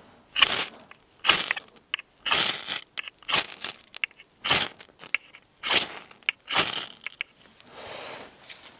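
Ferrocerium rod struck with the back of a knife, about seven scraping strikes roughly a second apart, throwing sparks onto scraped birch bark until it catches.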